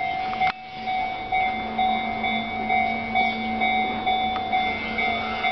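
Japanese railway level-crossing warning bell ringing its repeating electronic ding-ding alarm, with a sharp click about half a second in.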